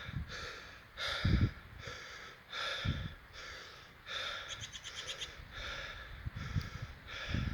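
A person breathing heavily close to the microphone, in quick, regular breaths under a second apart. A few low thumps come through, about a second in, around three seconds in and near the end.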